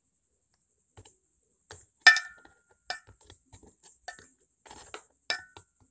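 A perforated steel spoon clinking against a steel pot as gulab jamuns are pressed down into sugar syrup: four sharp, ringing metal clinks about a second apart, with a few fainter taps between them.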